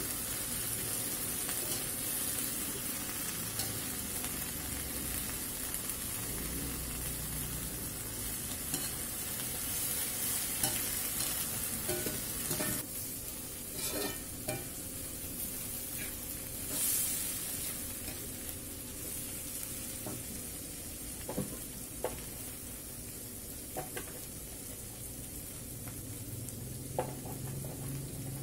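Chopped genjer (yellow velvetleaf) sizzling in a hot oiled wok while a metal spatula stirs and scrapes it. The sizzle dies down over the second half, leaving a few sharp knocks of the spatula against the wok.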